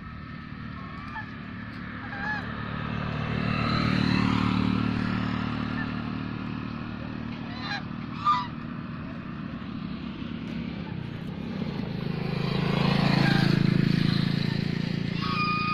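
Domestic Chinese geese honking in short, scattered calls, the sharpest about eight seconds in. Twice, a vehicle passing on the road swells up and fades away underneath.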